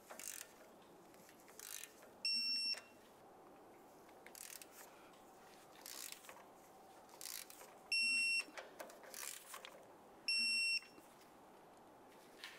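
Three short electronic beeps, each about half a second long on one steady high pitch, spaced unevenly, with faint tool clicks and taps between them.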